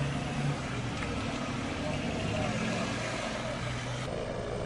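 Crowd voices murmuring over a steady vehicle engine hum. About four seconds in, the sound cuts abruptly to a helicopter's rotor noise.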